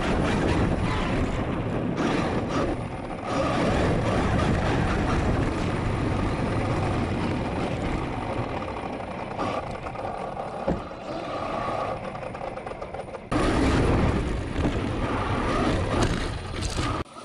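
Traxxas X-Maxx RC monster truck with a Hobbywing Max6 brushless motor, driving, heard from a camera mounted on the truck: motor and gear whine that comes and goes with the throttle over heavy rumble from the tyres, chassis and wind on the microphone. The sound jumps abruptly louder about thirteen seconds in.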